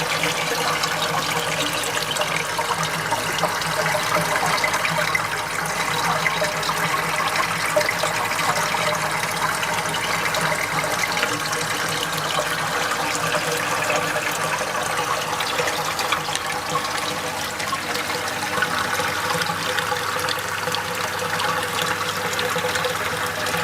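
Water running and splashing steadily through a pond filter's tanks.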